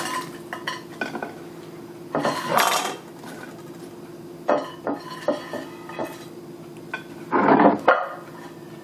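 Dishes and metal utensils clattering and knocking, with louder bouts about two seconds in and again near the end, over a steady low hum.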